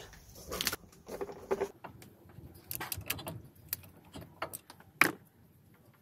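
Socket wrench clicking and clinking on the 14 mm banjo bolt that holds the brake hose to the front brake caliper as it is undone: a run of irregular metal clicks, with one louder clack about five seconds in.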